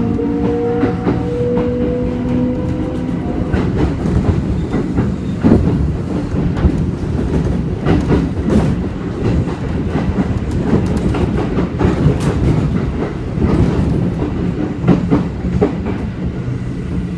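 Running sound inside a Kintetsu 1435-series electric train car as it gathers speed: an electric traction motor whine rises in pitch during the first few seconds, then the wheels rumble over the rails with repeated clicks and clatter from the rail joints.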